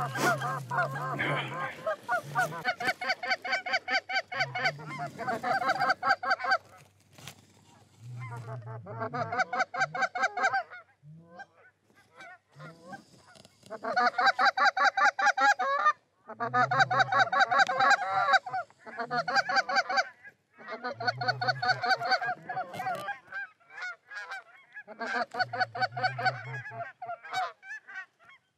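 Canada goose honks and clucks in quick, rapid series, coming in bursts of two or three seconds with short pauses between.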